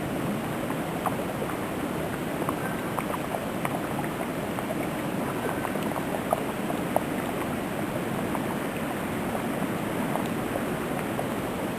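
Wind blowing steadily through a heavy snowstorm, an even rushing noise with scattered faint ticks.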